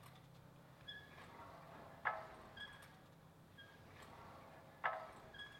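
Pilates reformer in use for leg presses: two metallic clunks with a short metal ring, about three seconds apart, as the sprung carriage goes through its press-out and return. Faint high squeaks come from the moving carriage and springs between the clunks.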